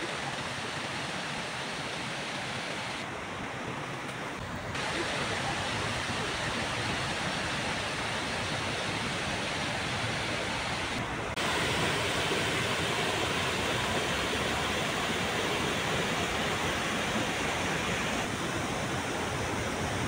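Stream water rushing and splashing over rocks, a steady noise that jumps louder about five seconds in and again about eleven seconds in.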